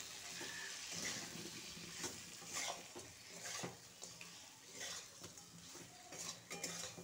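A spatula stirring and scraping prawns, potato and brinjal in spiced oil in a metal kadai, in irregular strokes about a second apart, over a light frying sizzle.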